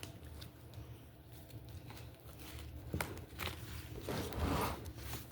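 Wax-coated slime being handled: a couple of sharp clicks about three seconds in, then a short crunchy crackle as the hardened wax layer breaks.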